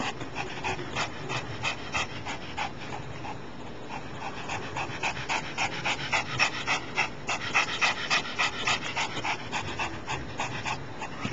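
A Pomeranian dog panting in a quick, steady rhythm, about four or five breaths a second.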